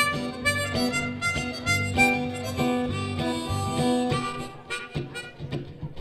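Blues harmonica playing held, wailing phrases over a live band's bass and guitar backing. It thins out about four and a half seconds in.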